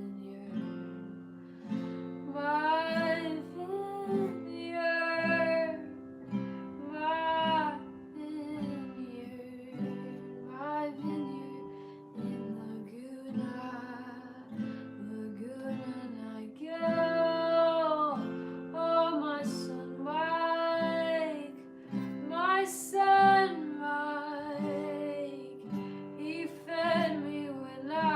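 A woman singing a slow song with vibrato on held notes, accompanied by strummed acoustic guitar.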